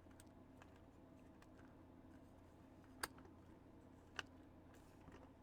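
Near silence with a faint steady room hum, broken by a few faint clicks, the clearest two about three and four seconds in, as model kit parts are handled and fitted together.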